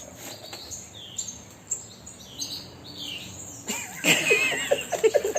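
A bird chirping: a series of short, high, falling chirps, then a louder wavering, warbling sound with a quick stutter comes in near the end.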